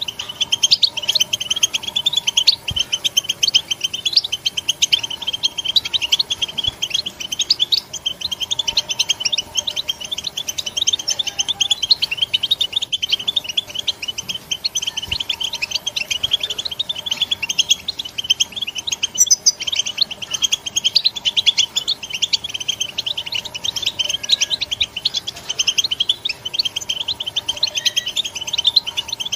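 European goldfinch (Carduelis carduelis) giving a continuous rapid twittering chatter, the 'betbta' call kept by goldfinch fanciers. It is a fast stream of short, high notes with no pauses.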